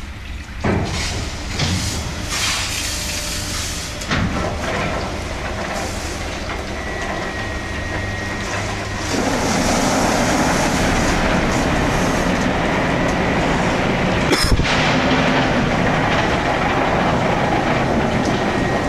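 Automatic car wash running: rotating brushes and water spray churning against a car in a steady, loud rumble that grows louder about halfway through, with one sharp knock about two-thirds of the way in.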